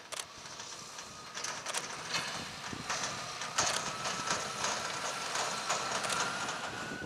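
Fendt 724 Vario tractor pulling a large trailer past at close range. A steady whine rises slightly in pitch over the clatter and rattle of the trailer running on the rough dirt track. It is loudest as the trailer goes by.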